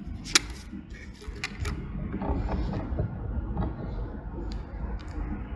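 Room noise with a steady low rumble, a single sharp click shortly after the start, a few fainter ticks, and faint, indistinct murmured voices in the middle.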